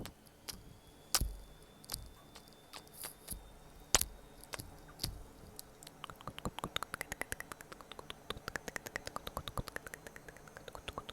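Close-miked ASMR clicking: a few scattered sharp clicks, then about halfway through a fast, even run of clicks, roughly ten a second, lasting several seconds.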